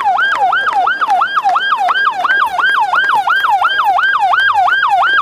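Electronic siren on a white ambulance-style van sounding a fast yelp: a pitch that jumps up and falls back, over and over, about three times a second.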